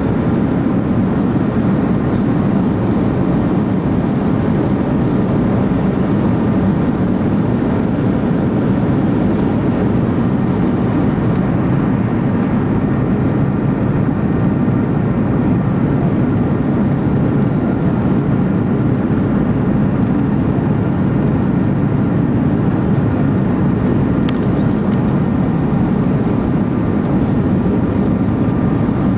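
Jet airliner cabin noise heard from a window seat: a steady low roar of engines and airflow with a faint high whine above it, unchanging throughout, as the Airbus descends toward landing.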